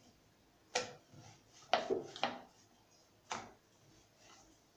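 Rolled naan dough and a wooden rolling board being handled: a few sharp knocks and taps, one about a second in, a quick cluster of three around two seconds, and another just after three seconds.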